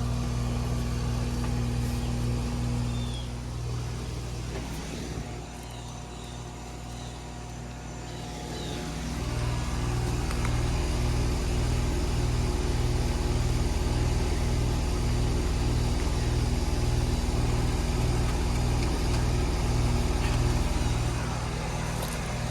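Outdoor condensing unit of a 2021 Carrier split air-conditioning system running, its compressor and condenser fan giving a steady low hum. It is quieter for a few seconds early on, and from about ten seconds in the hum carries a slow regular throb.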